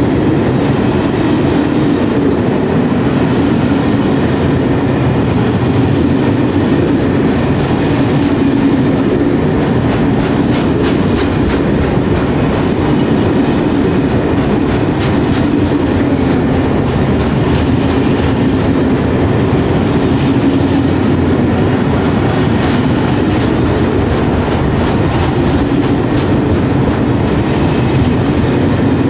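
Loaded log wagons of a timber freight train rolling past at close range: a steady, loud rumble of steel wheels on rail, with runs of rapid wheel clicks over the rail joints.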